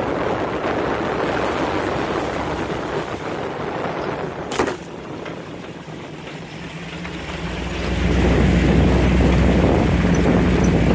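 Off-road vehicle driving a rough trail: engine running with wind on the microphone, one sharp knock about halfway through, then the engine gets louder with a steady low hum as it picks up speed near the end.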